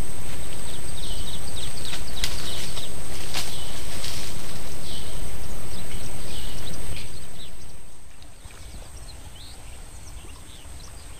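Wind buffeting the microphone in a loud, rough rumble, with short high chirps repeating about once a second over it. About seven seconds in the rumble dies away, leaving only quieter outdoor sound.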